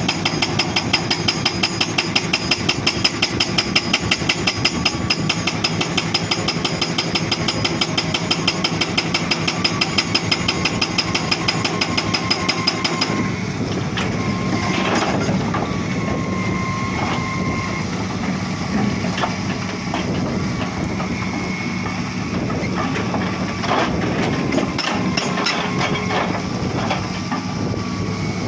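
Hydraulic rock breaker on a Hitachi Zaxis 240 excavator hammering rock in a fast, steady stream of blows, which stops about halfway through. After that the excavator's engine runs on, with brief squealing tones and scattered knocks and clanks.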